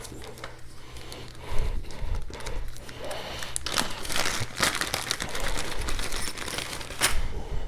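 Packaging crinkling and rustling with scattered sharp clicks and knocks, as a knife-edge sharpness tester is handled out of its box and set up.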